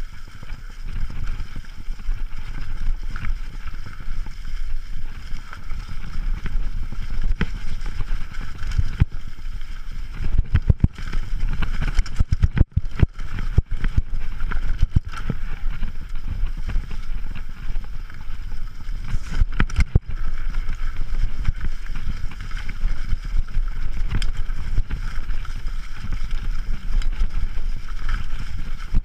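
Mountain bike riding down a leaf-covered forest trail: a steady wind rumble on the microphone with frequent rattles and knocks from the bike over rough ground, thickest around the middle.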